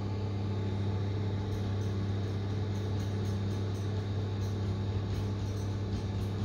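Electric oven running on its grill setting: a steady low electrical hum with an even whir of fan noise over it.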